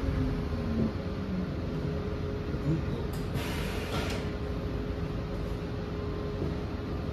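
Cabin noise inside a New Flyer XE40 electric bus under way: low rumble and road noise with a steady whine underneath. A hiss lasting about a second comes roughly three seconds in.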